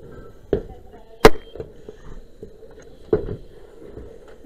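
Four sharp knocks struck on corrugated roof sheeting, the second and sharpest about a second in, with a steady low hum underneath.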